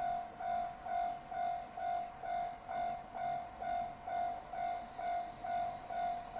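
Japanese railway level-crossing alarm ringing: an electronic bell repeating one clanging tone about twice a second, warning that a train is approaching.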